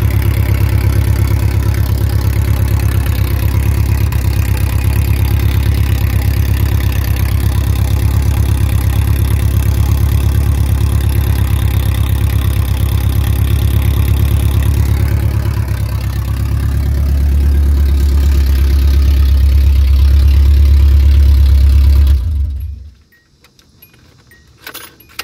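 1986 Nissan D21 pickup engine idling through bare Pacesetter headers with nothing else fitted: incredibly loud, a steady rumble with a fast even pulse. About two-thirds through, the note deepens and grows louder. Then the engine is switched off about 22 seconds in, followed by a few faint clinks.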